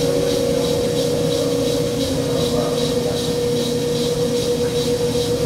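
Ransome 200P welding positioner's electric gear drive running under power: a steady motor whine over a low hum, with a faint high ticking about three times a second.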